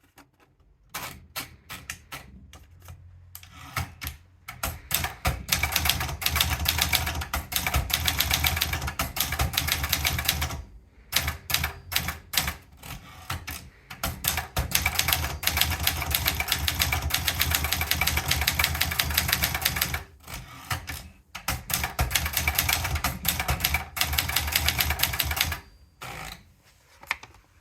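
Brother Deluxe 1510 typewriter being typed on: rapid runs of key strikes, broken by short pauses between runs.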